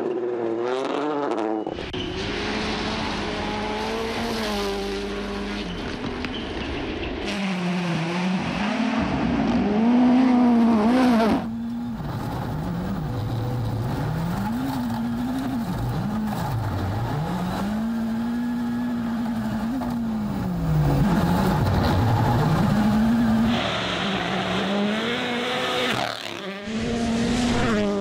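Rally cars' turbocharged four-cylinder engines revving hard, pitch repeatedly climbing and dropping with gear changes, as several cars pass one after another with abrupt cuts between them. The loudest passes come a third of the way in and again about three quarters through.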